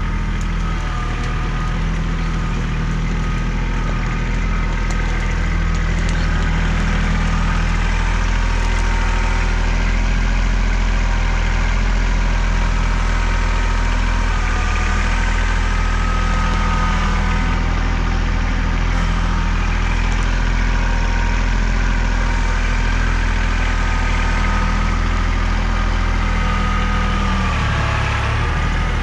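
Kubota L3800 tractor's diesel engine running steadily at an even speed. Near the end the revs dip briefly and then recover.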